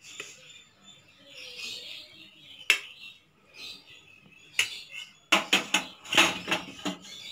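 Stainless-steel kitchenware clinking as cooked rice is tipped from a steel plate into a pan: a few single sharp taps, then a quick run of metal knocks and clatter near the end.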